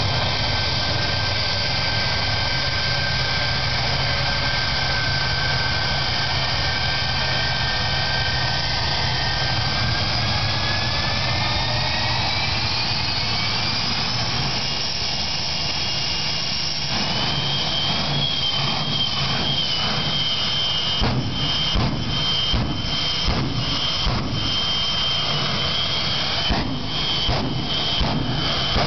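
Jet truck's turbine engine running with a steady whine that climbs in pitch about ten seconds in as it spools up, then holds high. In the last third the sound breaks into rapid, irregular pulses.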